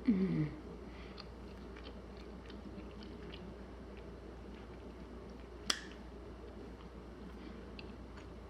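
A person chewing a soft honey bread roll: faint mouth clicks, opening with a short falling "mmm" of approval and with one sharper click past the middle.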